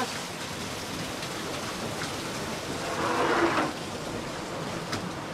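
Steady rushing hiss of water noise inside a racing yacht's hull at about 20 knots. About three seconds in there is a brief pitched sound with overtones.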